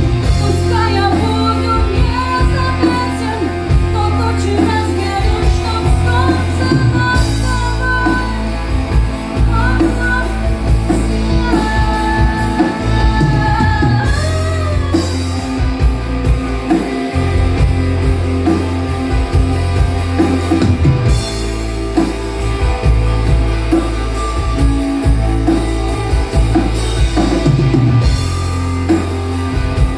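A rock band playing live, with a drum kit and guitars. A wavering lead melody runs over the first half.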